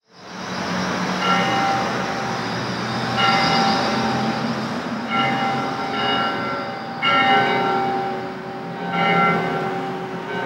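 Church bells tolling in slow, even strokes, five strikes about two seconds apart, each left ringing, with street traffic going by underneath.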